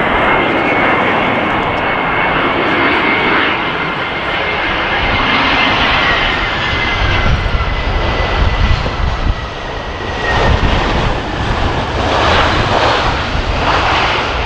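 Airbus A320's CFM56 jet engines on final approach: a thin high whine over loud jet noise, slowly dropping in pitch. About seven seconds in, the aircraft touches down and a deeper rumble of the landing rollout joins, swelling and easing several times.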